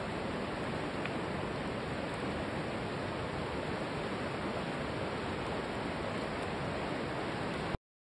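Steady, even rushing noise with no rhythm or tones, cutting off abruptly near the end.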